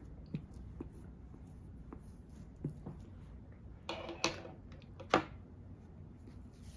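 Light taps and clicks of makeup products and tools being handled, with two louder sharp clacks about four and five seconds in.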